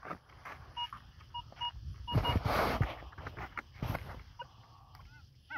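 Metal detector giving about five short beeps of one steady pitch over a second and a half as the coil passes over a buried metal target that reads 19 on the display. A brief rustle of noise and a few small clicks follow.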